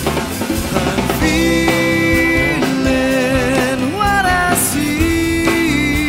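Rock song playing: a drum kit under held melody notes that waver, with a downward slide about four seconds in.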